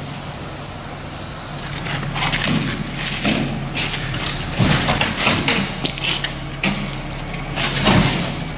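An engine or machine running steadily with a low hum, with irregular knocks and clattering from about two seconds in.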